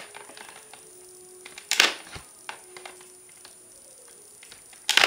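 Plastic clicks and knocks from handling a Nerf blaster and fitting its parts, with two louder short rustles, one about two seconds in and one near the end.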